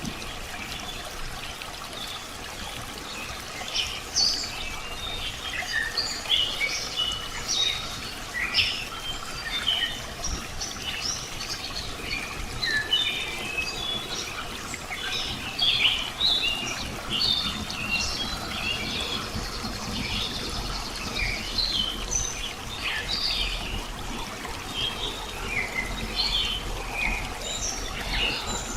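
Many birds chirping and calling in quick, short notes over a steady trickle of running water, the chirping growing busy about four seconds in.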